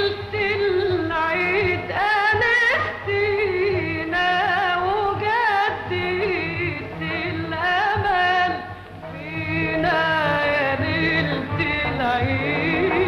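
Background music in a Middle Eastern style: a wavering, ornamented melody over a steady low accompaniment.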